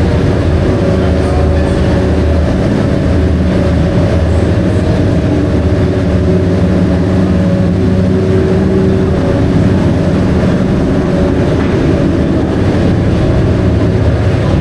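A loud engine running at a steady speed close by, its drone holding one pitch without passing swells, typical of a classic racing car idling or held at steady revs.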